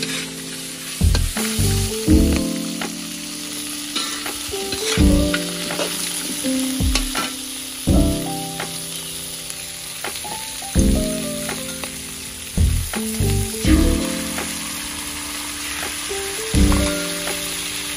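Crabs sizzling as they stir-fry in a large metal wok. A metal spatula scrapes the pan and knocks against it every second or two with loud, ringing knocks.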